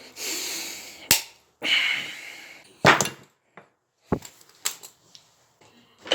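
A plastic ratchet screwdriver being broken apart: a handful of sharp cracks and knocks, with scraping and rattling in between.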